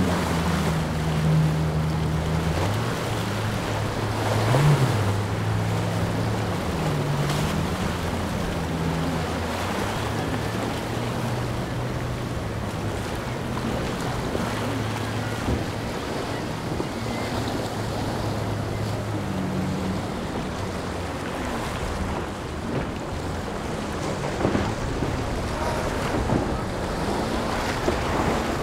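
Breaking waves and surf with wind buffeting the microphone, over the drone of powerboat engines. The engine note is strongest in the first ten seconds, where its pitch rises and falls as the boat rides the waves, then fades and returns faintly past the middle and near the end.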